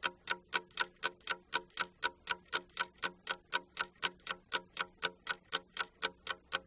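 Ticking-clock countdown sound effect: a steady, even tick about four times a second.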